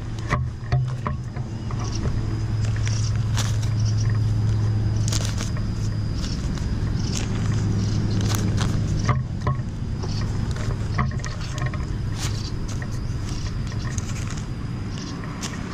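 A steady low mechanical hum, strongest in the first half, under scattered short clicks and scrapes from plastic nursery bags of soil being handled as bean seeds are pressed in.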